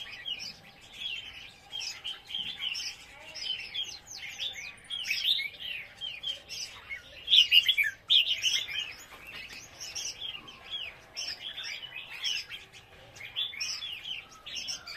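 Several caged red-whiskered bulbuls chirping and singing, a quick run of short warbled notes with no break, briefly louder a little past the middle.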